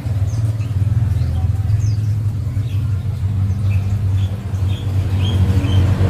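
A steady low rumble of a running engine, with faint short high chirps over it.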